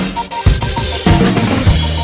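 Background music with a driving drum-kit beat, kick and snare about every half second, over a low sustained bass.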